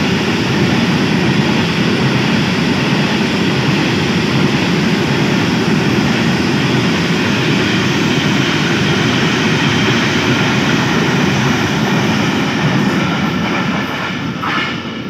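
Freight train of covered hopper wagons rolling past close by: a loud, steady rumble of wheels on the rails that fades near the end as the last wagon passes and the train draws away.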